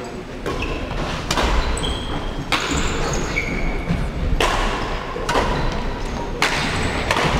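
Badminton rackets striking a shuttlecock: a series of sharp hits about a second apart, with short high squeaks, likely shoes on the wooden court floor.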